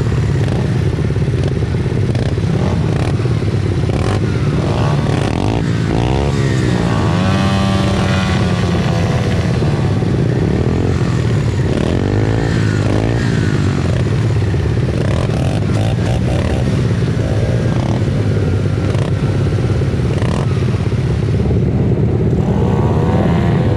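Racing pit bikes in the 90 cc stock class, their small engines revving hard. Engine notes repeatedly rise and fall as the bikes accelerate, shift and pass, over a steady engine drone.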